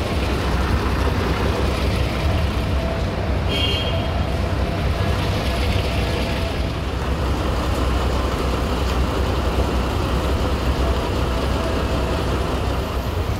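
Steady rumble of bus engines and road traffic, with a short high-pitched tone about three and a half seconds in.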